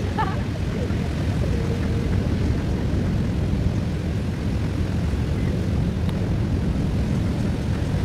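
Steady low rumble of wind on the microphone mixed with Atlantic surf breaking on the beach.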